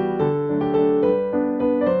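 Background music: a gentle piano melody with chords, notes struck every quarter second or so.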